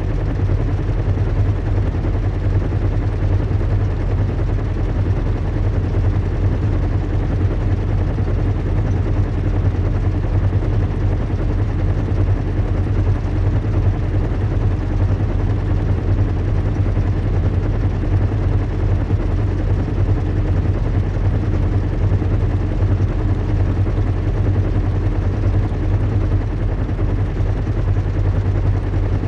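Recreated ambience of a zeppelin airship in flight: a steady low hum and rumble of engines over an even wash of noise, unchanging throughout.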